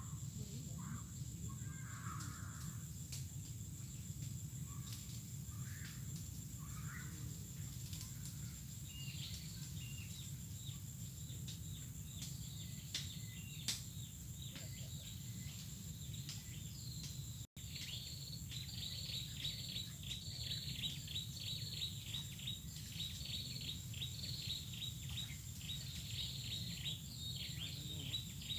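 Swamp-edge ambience: a steady high-pitched insect drone with a low steady rumble beneath, and a bird calling in rapid, repeated short chirps from about a third of the way in, growing busier toward the end.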